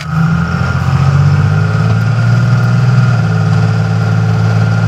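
2002 Dodge Ram 2500's 5.9-litre 24-valve Cummins turbodiesel pulling up a hill under load, heard from inside the cab as a steady low drone. Its note drops a little about two seconds in as the automatic transmission upshifts smoothly.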